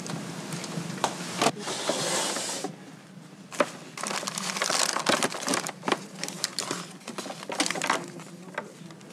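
Hands rummaging through plastic-bagged medical supplies, including packaged oxygen masks, in a storage drawer. The plastic packaging crinkles and rustles, with a few sharp clicks and knocks. The crinkling is densest in the second half.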